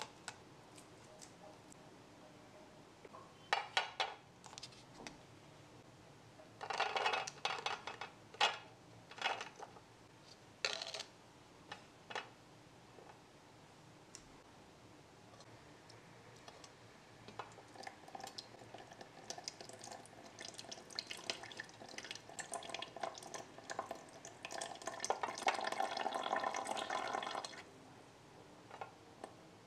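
Small plastic clicks and rattles as a plastic clamshell of blueberries is handled and the berries are tipped into a tiny plastic strainer. Later a thin stream from a miniature kitchen tap runs over the berries in the strainer, growing louder and then shutting off suddenly.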